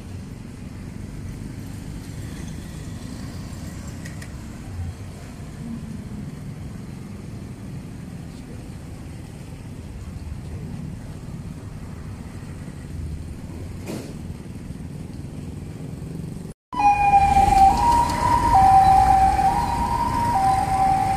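Low rumble of street traffic, motorbikes and cars. About three-quarters of the way through it cuts off sharply and a loud two-tone siren begins, switching between a high and a low note about once a second.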